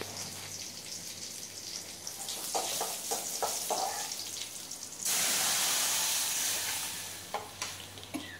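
A tempering of mustard seeds, curry leaves and dried red chillies sizzles in hot oil in an aluminium kadai, and a spoon clinks against the pan a few times. About five seconds in, dal is poured into the hot tempering and sets off a sudden loud sizzle that fades over the next two seconds.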